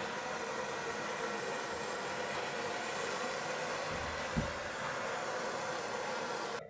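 Handheld propane torch burning with a steady hiss as it is swept over a freshly poured epoxy tabletop to pop surface bubbles, cutting off suddenly near the end. A light knock about four seconds in.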